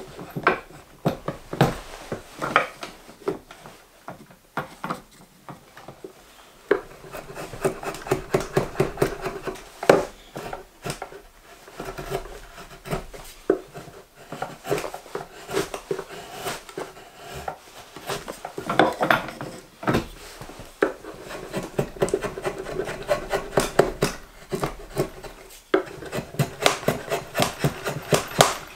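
Svante Djärv drawknife shaving the handle of a green maple spoon blank clamped in a shavehorse: repeated scraping strokes, each peeling a shaving, with sharp clicks between them.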